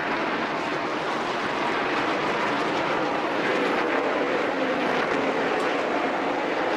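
NASCAR Cup stock cars' V8 engines running on the track, a steady, dense engine drone with a faint pitch that drifts as cars go by.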